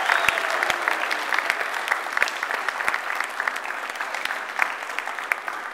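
An audience clapping, a dense patter of many hands that eases off slightly toward the end.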